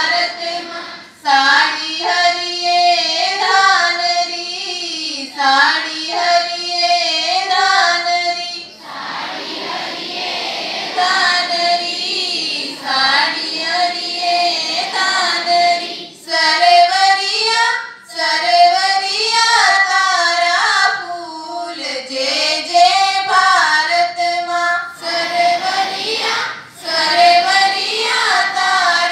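Schoolchildren singing a prayer together, in sung lines with short pauses between them.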